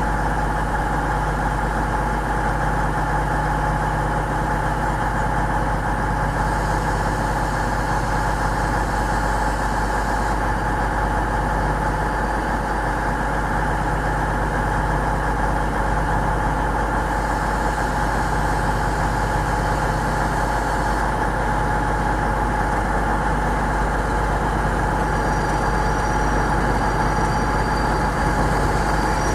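Class 97/3 (ex-Class 37) diesel locomotive's English Electric V12 engine running at low power as it creeps through the station: a steady drone with a constant high whine over it. Faint high squeals near the end.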